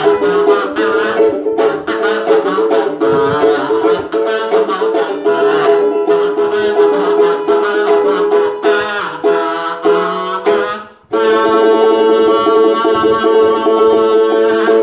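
Homemade kazoo buzzing a melody over music with plucked-string accompaniment, ending on one long held note.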